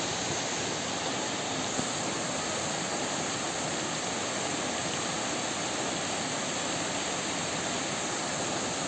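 Heavy downpour, a steady, even rush of rain with no letup.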